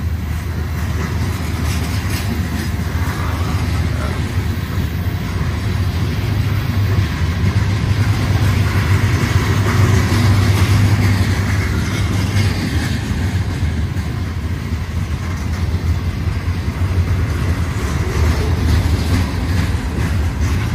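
Freight cars of a mixed manifest train (covered hoppers, boxcars and tank cars) rolling past close by: a steady rumble of steel wheels on the rails, swelling a little about halfway through.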